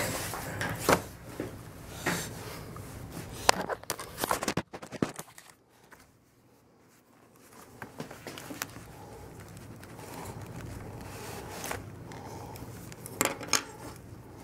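Handling noise from work gloves and a plastic glove clip: scattered clicks, rustles and scrapes. There is a near-silent pause about five seconds in, and a few more clicks near the end.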